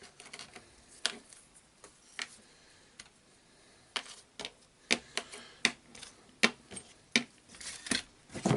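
Irregular light clicks and taps of small screws and plastic housing parts being handled, during reassembly of a cordless jigsaw's gear housing. The clicks come more often in the second half.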